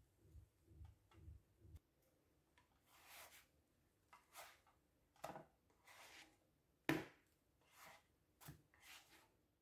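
Nylon spatula scraping across a nonstick granite-coated frying pan as it slides under pancakes and flips them: a series of short scrapes, with one sharp tap about seven seconds in.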